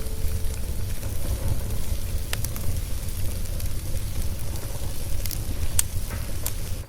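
Wood fire crackling in a fireplace: a steady low rumble of the flames with a few sharp pops, about five over the stretch.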